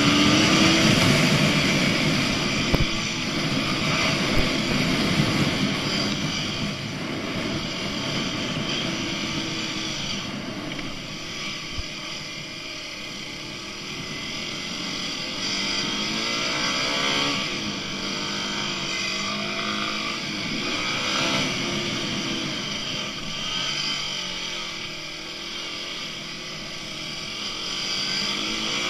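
Dirt bike engines running and revving up and down, with a steady rushing noise over them.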